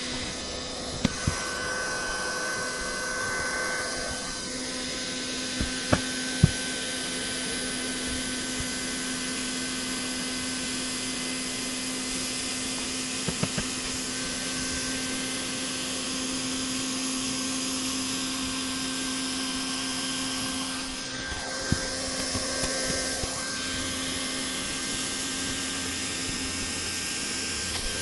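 Handheld hot-air welding gun running steadily: a constant blower hiss with a low motor hum. A few short sharp taps come now and then as the seam roller knocks against the membrane.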